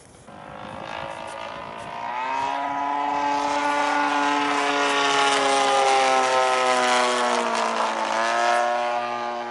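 Radio-controlled model aeroplane flying past, its engine and propeller running steadily: the sound swells over the first couple of seconds, then its pitch sags slightly near the end and rises again.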